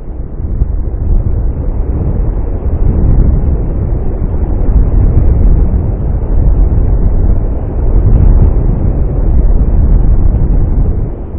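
Strong wind gusts buffeting the microphone: a loud, low, rumbling roar that builds over the first second or two, stays loud through the gust, and eases off near the end.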